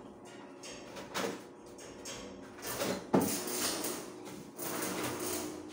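Metal knocks and scrapes from work on a steel stair railing, in short irregular bursts, with one sharp knock about three seconds in.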